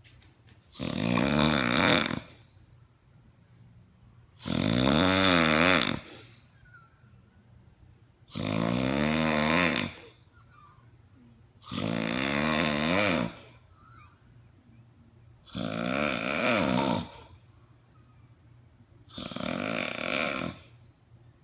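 A person snoring loudly: six long, rattling snores, each about a second and a half, about every three to four seconds, with quiet pauses between. The snoring is presented as the sound of sleep apnea.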